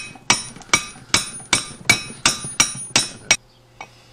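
Hammer striking a metal seal driver to tap a grease seal into a disc brake rotor hub: about ten sharp, ringing metal blows at a steady rate of nearly three a second, stopping about three and a half seconds in.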